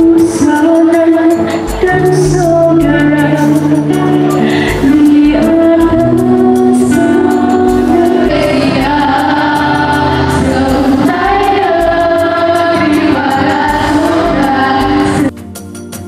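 A girl singing a song into a microphone over amplified accompanying music with a steady beat. About fifteen seconds in, the music drops abruptly to a much quieter level.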